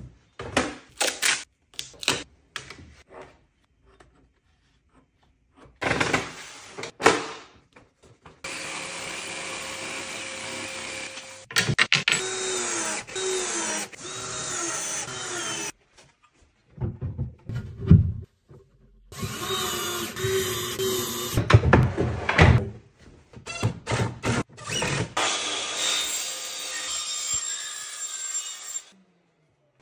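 Cordless drill-driver driving screws through metal brackets into a cabinet panel, in short whining runs that rise and fall in pitch, with stretches of other power-tool noise and knocks of panels being handled.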